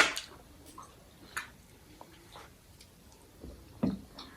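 Eating sounds at a shared meal: a sharp smack or click right at the start, a few faint clicks and ticks, and a duller knock shortly before the end.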